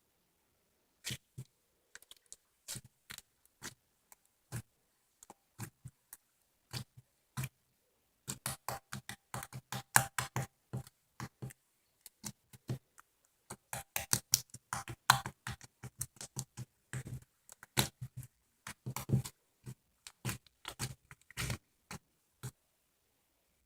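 Slime being squeezed and pressed, giving off irregular wet clicks and pops, a few at first, then quick clusters of them.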